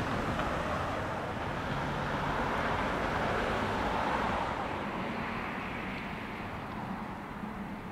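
Steady rushing noise of a passing vehicle, swelling about four seconds in and then slowly fading.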